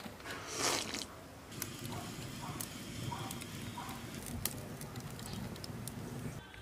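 Wood fire burning in a brick oven, crackling with scattered sharp pops over a steady low rush of flame. A short hiss comes about half a second in.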